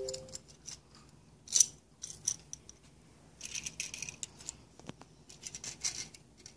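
Small die-cast Hot Wheels toy cars being picked up and set down on a concrete ledge: scattered light clicks and clatter, with a couple of short scraping bursts as cars are slid into the row.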